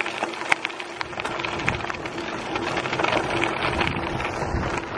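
Mountain bike rolling along a gravel track: the tyres crunch and crackle over loose stones, with many small clicks and rattles and a faint steady hum underneath.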